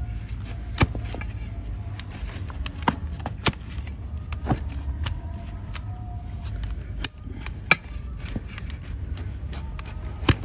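Wide flat hoof blade paring through overgrown donkey hoof horn on a wooden block: irregular sharp cracks and knocks, a handful of them loud, as pieces of hoof wall split off. A steady low rumble runs underneath.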